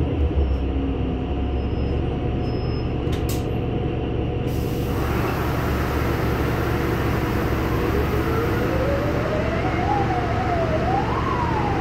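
Inside a NefAZ-5299-40-52 city bus: the engine runs with a steady low rumble. A hiss sets in about halfway through, and over the last few seconds a whine climbs in pitch, wavering up and down as it rises, as the bus accelerates.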